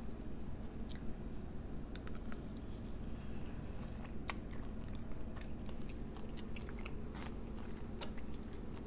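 A person chewing a mouthful of poke bowl (raw fish, octopus and salad greens) up close, with many small wet clicks from the mouth, over a faint steady low hum.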